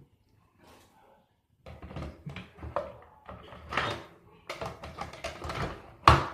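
Irregular clattering and rustling of objects being handled, with a sharp knock about six seconds in.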